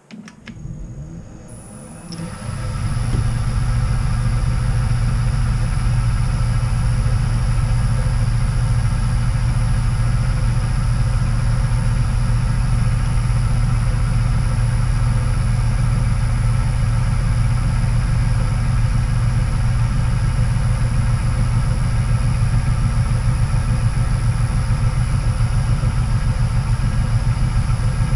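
Metal-turning lathe switched on, its motor coming up to speed over about two seconds and then running steadily with a constant low hum.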